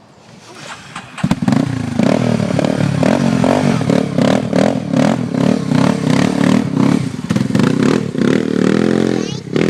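ATV engine running up close, its pitch rising and falling repeatedly as the throttle is worked, with rattling clatter over it; it comes in loud about a second in and dips briefly near the end.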